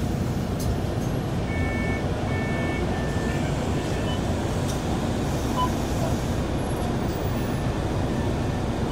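Steady low rumble of a city bus's engine and road noise heard from inside the moving bus.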